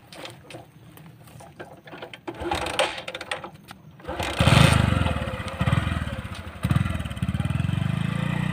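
A motorcycle engine comes in suddenly about four seconds in and revs as the bike pulls away, its pitch rising in steps. Before that there are only small clicks.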